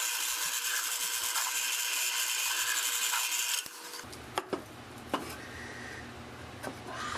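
Drill press boring 3/8-inch holes in wood: a steady hiss of the bit cutting over the motor's hum, which stops abruptly about three and a half seconds in. A few sharp clicks and knocks follow.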